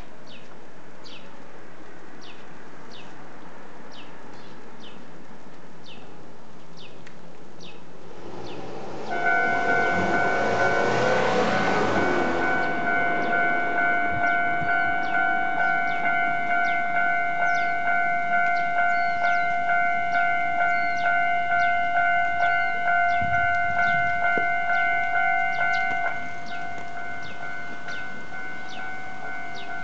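Railway level-crossing warning bell starting up about nine seconds in, with a brief rush of noise at the start. It rings in an even pulse about twice a second, then drops in level a few seconds before the end while still sounding.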